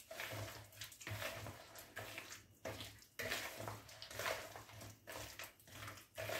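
Bare hands squeezing and rubbing softened margarine, oil and powdered sugar together in a plastic bowl: a soft, wet squelching in repeated strokes, the fat and sugar being creamed into a paste.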